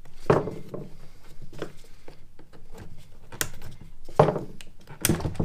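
Hands working a plastic crankcase ventilation hose off the CCV system on a bench: scattered clicks and knocks of plastic parts with rustling handling noise.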